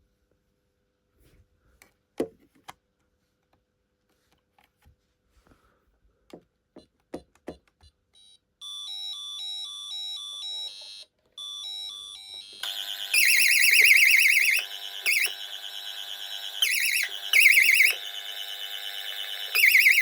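A few faint clicks, then about eight seconds in the 1990s Pyronix Paragon Super intruder alarm system starts a pulsing electronic two-tone. About four seconds later a much louder pulsing alarm siren cuts in, with short breaks. The alarm is going off unexpectedly while the panel is showing tamper faults.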